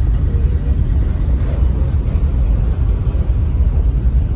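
Steady low rumble on the open deck of a car ferry under way: wind buffeting the microphone, mixed with the ship's engines and the wash of its wake.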